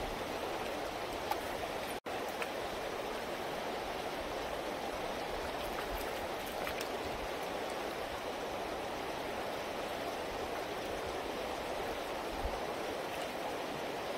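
Steady rush of river water flowing over a shallow gravel bed, with a momentary dropout about two seconds in.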